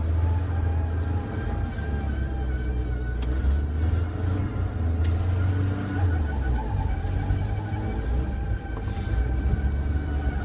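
Chevrolet C10 pickup's engine running with a steady low drone, its pitch shifting a little over the seconds, with two light clicks a few seconds in.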